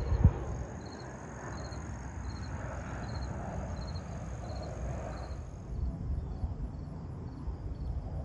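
Insects chirping in a steady rhythm, about two high chirps a second, over a low rumble. A single thump comes just after the start.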